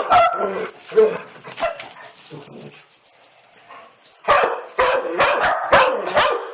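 A dog barking in clusters of sharp barks: several at the start, a quieter lull in the middle, then a quick string of barks from about four seconds in.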